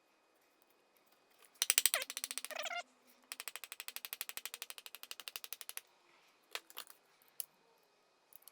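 Rapid, evenly spaced clicking, about ten clicks a second. It comes in two runs: a louder one of about a second with a brief squeak, then a softer one of about two and a half seconds, followed by a few single clicks near the end.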